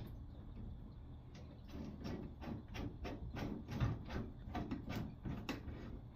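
A run of short knocks and scrapes, about two to three a second, from hand tools working at a faucet to get the old cartridge out.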